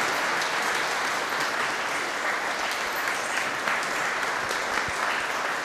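Church audience applauding steadily after a performance, the clapping ringing in the church's reverberant space.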